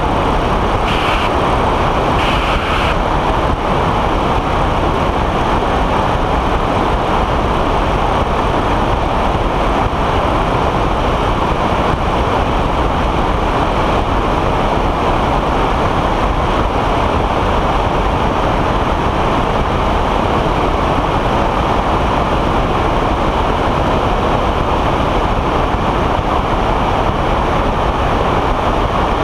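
Weight-shift microlight trike in cruise flight: a steady, loud rush of wind over the wing-mounted camera's microphone mixed with the drone of the trike's engine and pusher propeller.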